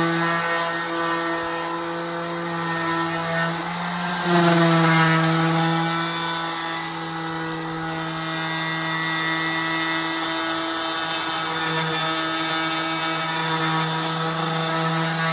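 Electric sander running steadily on wood with a continuous motor whine. About four seconds in its pitch dips and jumps back up, briefly louder.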